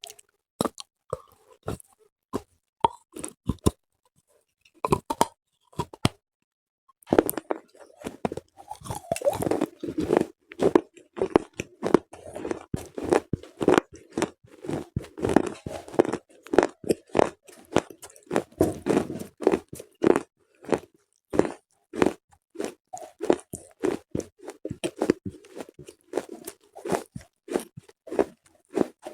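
Slate pencils being bitten and chewed close to the microphone: sharp crunches and snaps, spaced out at first, then continuous crunchy chewing from about seven seconds in.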